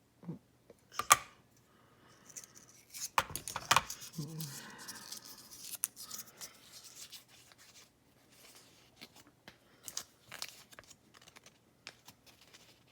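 A picked challenge padlock being taken apart by hand: sharp metal clicks and taps, the loudest about a second in and between three and four seconds in, with rustling through the middle and scattered light clicks later.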